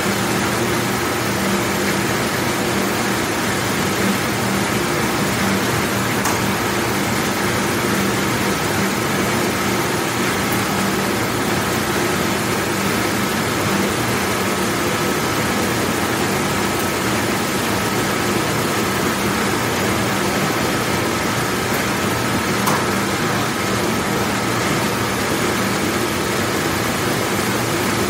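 Large commercial dishwashing machine running: a steady rush of noise over a low hum, with a thin, faint high whine. A couple of faint clicks sound through it.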